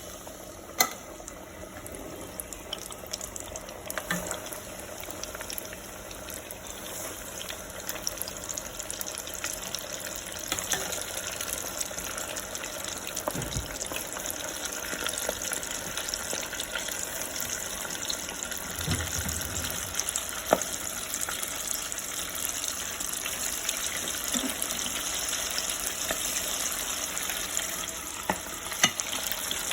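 Flour-coated pig tails deep-frying in hot oil: a steady high sizzle with scattered sharp pops and crackles that slowly grows louder.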